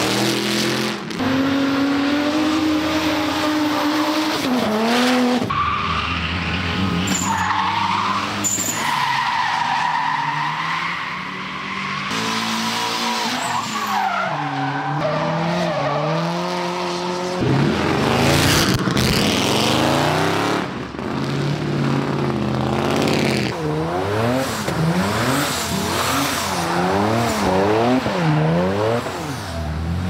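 Hyundai Genesis Coupe drift cars sliding sideways, engines revving hard and swinging up and down in pitch over the hiss and squeal of tyres spinning into smoke. Near the end the engine note rises and falls quickly over and over.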